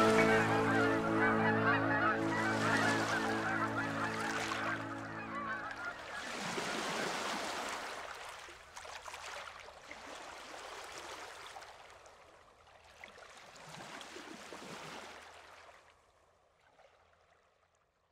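A sustained music chord ends about six seconds in, with birds honking and calling over it. Then ocean waves wash in, in slow swells that fade away near the end.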